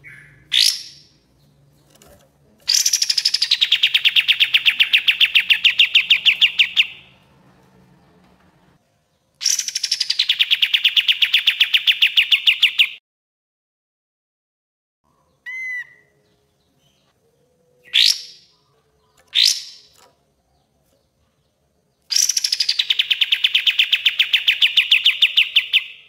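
Kapas tembak bulbul singing its rapid 'tembak' song: three long trills of fast, evenly repeated notes, each opening with a quick downward sweep, with a few short rising calls between them.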